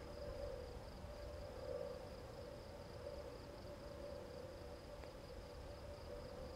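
Night insects chirping in a steady, high-pitched chorus, over a lower droning tone that swells and fades and a faint low rumble.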